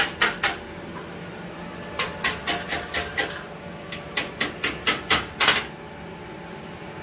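Small hammer tapping thin steel sheet metal in quick light taps, about four or five a second. They come in three runs with short pauses between: a few at the start, then about six, then about seven.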